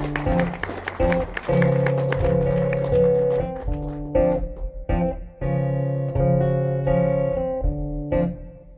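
Steel-string acoustic guitar played live, chords strummed and picked and left to ring between strokes, with no singing.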